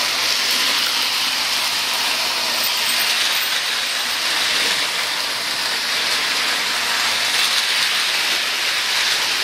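Tinplate toy trains running on three-rail track, a steady rolling whir and hiss that keeps an even level throughout.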